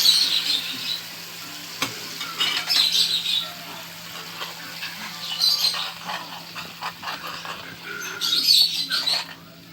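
Yogurt being stirred into a pan of garlic fried in ghee with dried mint, with a light sizzle. A bird squawks and chirps in short bursts several times.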